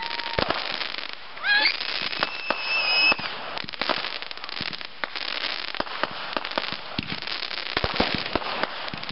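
Fireworks display: dense crackling from glittering bursts, peppered with many sharp pops. In the first three seconds a few whistling tones sound over the crackle, the clearest a high steady whistle about two to three seconds in.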